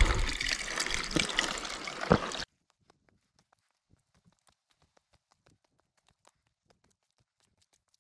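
Water running and trickling down a wet hiking trail, with a few footsteps on wet rock. About two and a half seconds in, the sound cuts off abruptly to near silence with only faint scattered clicks.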